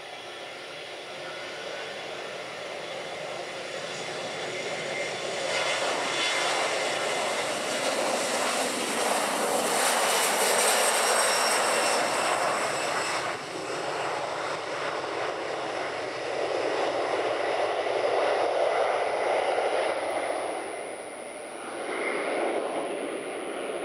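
Boeing 737-400's CFM56-3 turbofan engines at takeoff power during the takeoff roll. The jet noise grows louder as the airliner approaches and is loudest as it passes about ten seconds in, with a high whine falling in pitch. It stays loud as the aircraft lifts off.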